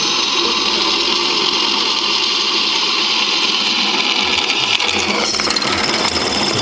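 Drill press boring a hole through a metal door bracket with a freshly sharpened twist bit: a steady whirring, cutting noise as the bit chews through the metal and throws off chips.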